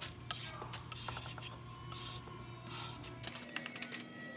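Metal vegetable peeler scraping down a raw carrot in quick repeated strokes, shaving off strips of peel.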